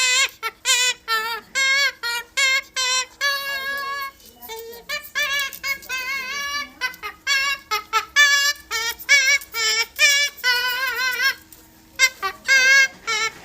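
Amazon parrot singing in a string of short, high, wavering notes with a strong vibrato, like a person's sung melody, pausing briefly near the end before starting up again. A faint steady hum sits underneath.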